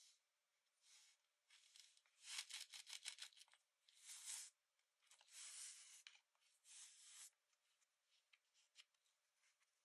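Kinetic sand crunching and rustling as fingers press and pack it into a plastic cookie cutter, in a string of soft hissing bursts with fine crackles. It thins to a few faint ticks near the end.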